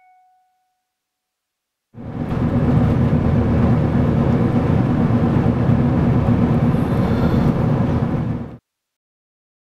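Steady noise of a moving vehicle heard from inside. It cuts in abruptly after about two seconds of silence and cuts off abruptly near the end.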